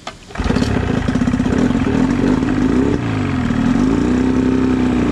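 Military outboard engine starting for the first time on its cleaned and refitted carburettor. It catches about half a second in and runs steadily, its speed dipping and rising again around three seconds in as the throttle is worked.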